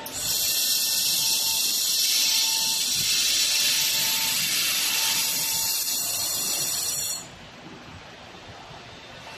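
A robot-held fiber laser welding head welds a metal joint with a loud, steady, high-pitched hiss. The hiss starts just after the beginning and cuts off suddenly about seven seconds in, when the weld pass ends.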